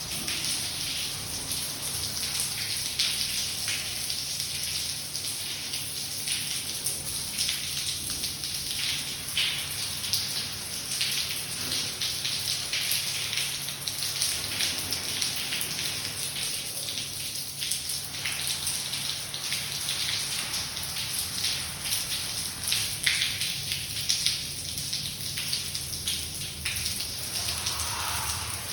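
Water leaking down from a flooded flat above, splashing in a steady, dense patter of drops.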